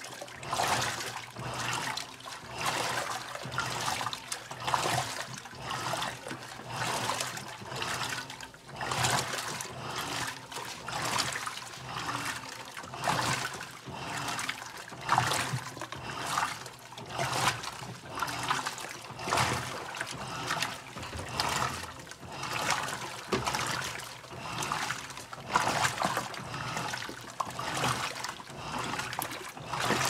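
Electrolux LTM15 top-load washing machine agitating a load in its wash cycle: soapy water and clothes slosh and splash in the tub, swelling in regular surges about once a second as the agitator swings back and forth.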